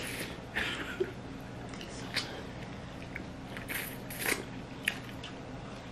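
Person eating snow crab legs by hand without scissors: short, scattered crackles and clicks of shell breaking, with chewing and mouth sounds as the meat is pulled out.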